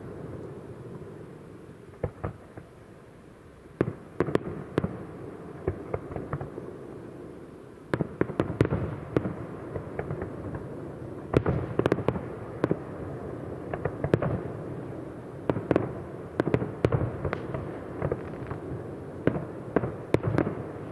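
Aerial firework shells bursting: an irregular run of sharp bangs over a low rumble, sparse at first and coming thick and fast from about a third of the way in.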